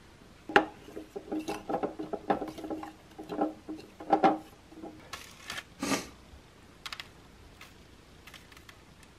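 Small kitchen handling sounds: a busy run of light clicks and taps for about six seconds, then a few scattered clicks.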